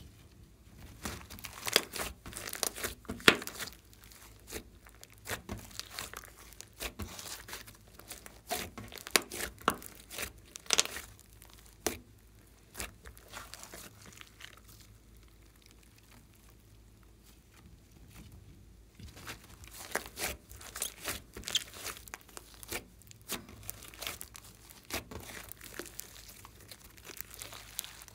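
Hands squeezing and stretching a thick foam-bead slime, giving fast sticky crackling and popping. The pops are dense for the first several seconds, thin out for a while in the middle, then pick up again.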